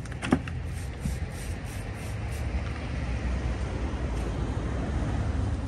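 Hands rubbing and smoothing a wet vinyl stripe decal onto a truck's painted cab door, a steady scuffing hiss over a low rumble, with a couple of short clicks just after the start.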